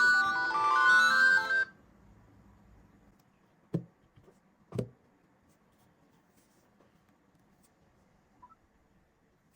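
A mobile phone's ringtone, a melody of stepping electronic notes, plays and cuts off suddenly under two seconds in. Two short taps follow about a second apart, then faint room tone.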